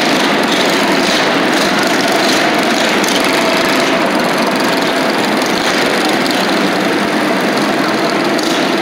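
Several small motorcycle engines running together at idle, a steady dense engine noise with no change in level.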